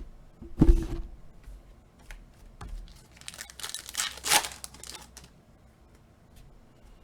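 A thump about a second in, then a foil trading-card pack wrapper being torn open and crinkled for about two seconds, with small handling clicks around it.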